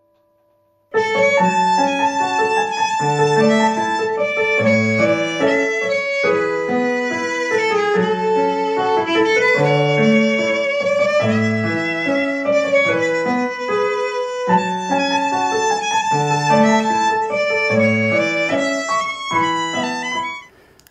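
Violin and electronic keyboard playing a tune together, the violin holding long singing notes with vibrato over keyboard chords. The music starts about a second in and stops just before the end.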